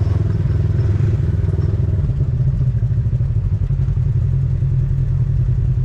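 ATV engine running steadily while riding on a dirt trail, a constant low drone.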